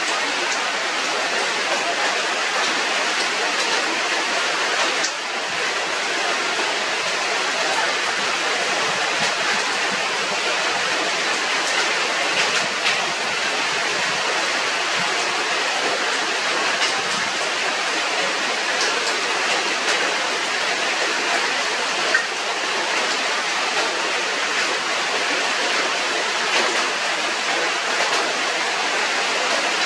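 Steady, even rushing noise like falling or running water, with a few faint clicks.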